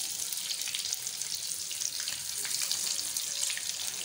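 Hot ghee sizzling steadily with small crackles around egg-coated mutton nargisi koftas shallow-frying in a pan.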